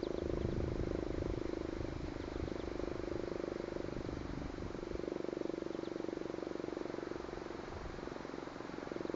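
Sentry 3V8-H fire siren sounding a steady low tone with a rapid flutter, swelling and dipping slowly in loudness. The overloaded recorder adds a rough, distorted low rumble.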